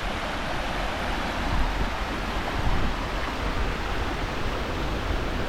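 Steady rush of fast-flowing creek water near a waterfall, an even, unbroken hiss.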